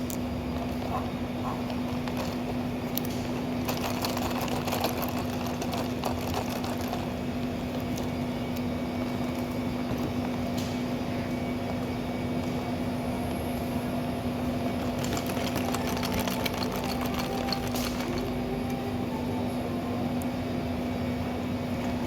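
A steady mechanical hum with an even rushing noise beneath it, like a motor running without a break.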